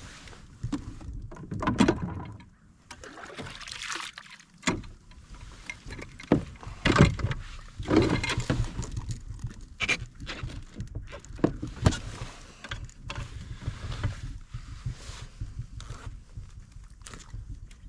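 Irregular knocks, clicks and rustling bursts of a smallmouth bass being landed and handled aboard a fishing kayak, over a low rumble.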